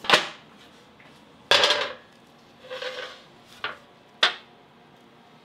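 Metal baking tray clattering on a marble counter, with a wooden rolling pin knocked as it is moved aside. There are five clatters and knocks in about four seconds, two of them drawn out like a scrape.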